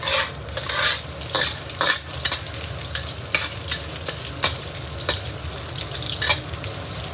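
Metal spatula scraping and knocking against a wok while pork and garlic scapes sizzle in hot oil, being stir-fried. Over the steady sizzle, sharp scrapes come irregularly, about once a second.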